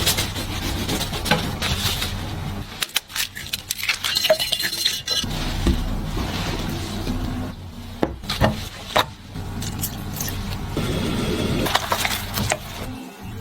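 Kitchen sounds: utensils and dishes clinking and knocking at irregular intervals, between stretches of scraping and rustling.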